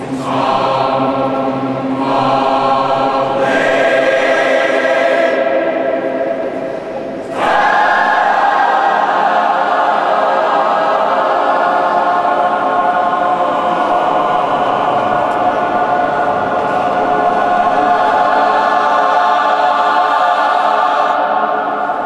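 Large mixed choir singing sustained chords in the stone nave of a cathedral. About seven and a half seconds in, a louder, fuller chord comes in and is held.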